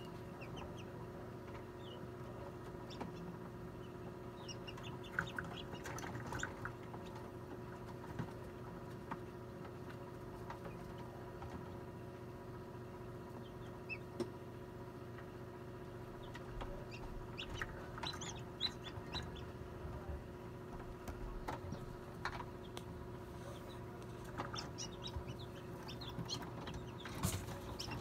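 Newly hatched chicks peeping in the incubator, short high peeps coming in clusters several times, over the steady hum of the incubator.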